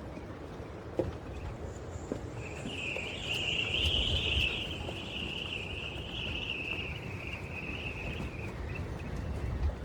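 A high, continuous insect buzz starting a couple of seconds in, loudest soon after and fading out near the end, over a low rumble.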